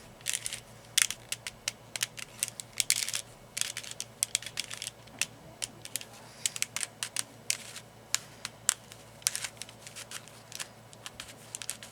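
Rings of a 3D-printed plastic cryptex being twisted by hand, giving quick irregular clicks as they are turned to line up the code. The rings are new and a little tight.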